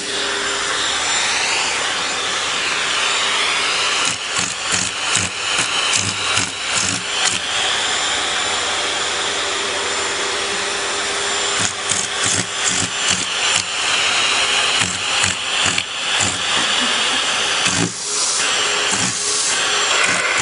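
Vacuum cleaner running steadily, its hose nozzle held against a cat's fur, with frequent short knocks and scuffs from about four seconds in.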